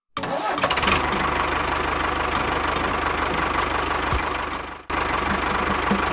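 A small engine running steadily with a rapid low chugging. It stops abruptly for a moment just before five seconds in, then picks up again.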